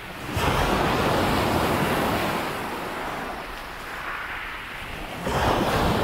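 Calm sea waves breaking on a beach: a wave breaks about half a second in and washes up the shore, fading slowly, and another breaks near the end.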